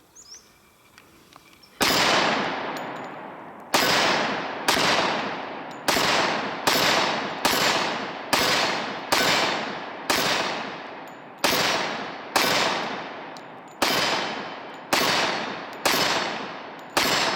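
Glock 20 Gen 4 10mm pistol firing a string of fifteen shots at roughly one a second, each shot followed by a long echoing tail. The first shot comes about two seconds in.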